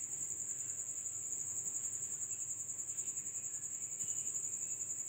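A cricket chirping steadily: a high-pitched trill pulsing rapidly and evenly.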